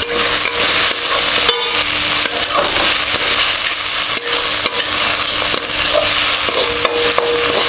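Chopped ridge gourd sizzling as it fries in an aluminium wok, stirred and scraped with a metal spatula in repeated strokes.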